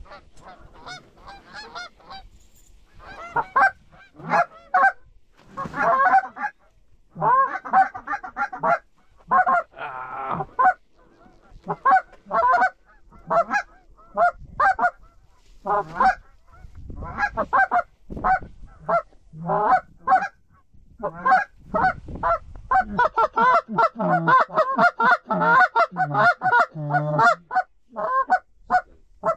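Geese honking and clucking in a long run of short calls, coming thickest over the last few seconds.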